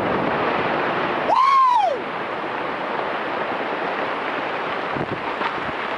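Quarry blast in granite: a sustained, steady noisy roar as the shot rumbles and broken rock falls. About a second and a half in, a short whoop rises and falls over it.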